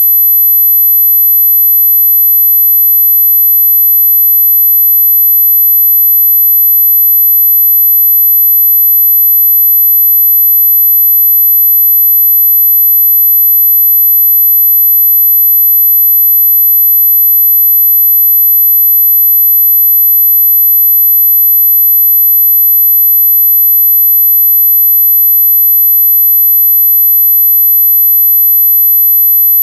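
A pure 12 kHz sine tone, a very high-pitched whistle held perfectly steady in pitch and loudness, played as a tinnitus-masking tone.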